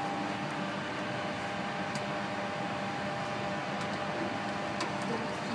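Steady hum of a laminar flow cabinet's blower fan, with a few faint light clicks of a metal spatula against a glass bottle.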